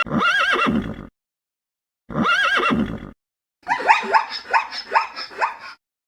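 Horse whinnying: two short calls with a wavering pitch, then a longer call broken into a quick run of falling pulses, separated by silent gaps.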